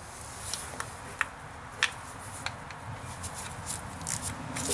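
Small metal clicks and ticks, irregularly spaced, as a socket wrench and the retaining screw of a vehicle speed sensor are fitted and the screw is turned in by hand.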